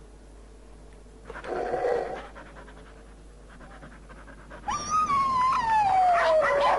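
A Great Dane: a brief sound about a second and a half in, then near the end a long whine that slides steadily down in pitch.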